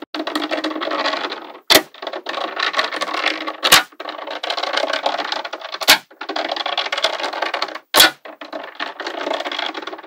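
Small magnetic balls rattling and clicking against one another in continuous stretches, broken about every two seconds by a single sharp snap as balls click together, four times in all.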